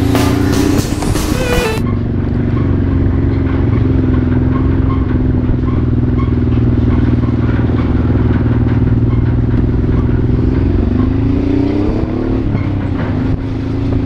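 Background music for the first two seconds, which cuts off suddenly. Then a Honda Transalp's V-twin engine runs steadily under way. Near the end the revs climb for about two seconds, then fall back.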